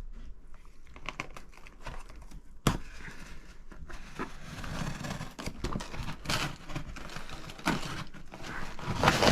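A large cardboard shipping box being handled and opened: crinkling, rustling and tearing of cardboard and packing, with scattered clicks and one sharp knock about three seconds in.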